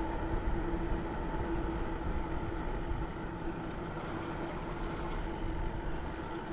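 Steady rumble of wind on the microphone and a bicycle rolling along, with a steady low hum underneath.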